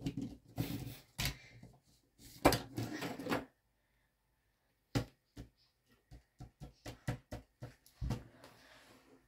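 Hard plastic Lego bricks clicking and knocking as a built Lego figure is handled and posed, with two short busier stretches of rubbing and clatter in the first few seconds, then a pause and a run of separate sharp clicks.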